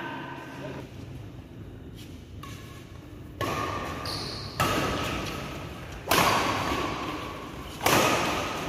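Badminton rackets striking a shuttlecock in a rally: about five sharp hits, one every second or so, each ringing out in the reverberant hall.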